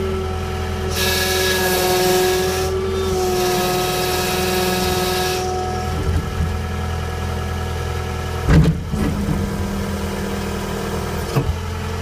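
John Deere 318 skid steer's diesel engine running steadily under load, with a high steady whine over it. A hiss comes in for about four seconds near the start, and one heavy thump about eight and a half seconds in.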